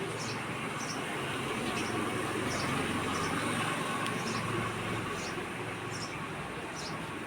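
House sparrows chirping: short high chirps repeating every half second or so over a steady background rumble.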